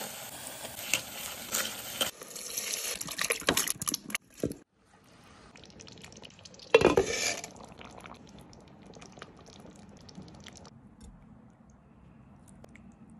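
Onions and spices sizzling in oil in an earthenware pot while a wooden spatula stirs and scrapes them, with many small knocks, for about the first four seconds. A brief loud sound comes about seven seconds in, then a few faint clinks of a ladle.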